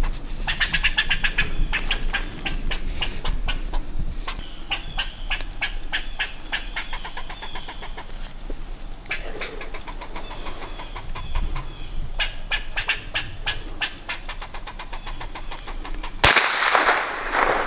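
Squirrels barking and chattering: rapid runs of harsh, clicking calls repeated many times a second, broken by short pauses. A sudden loud burst of noise comes near the end.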